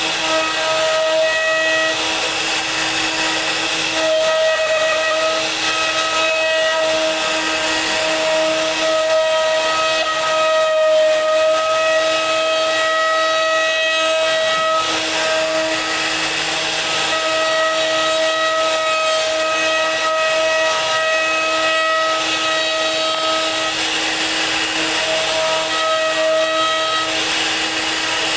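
CNC router spindle running, with a steady high whine over the hiss of the bit routing a relief pattern into a wooden panel. The whine weakens and returns every few seconds as the cut changes.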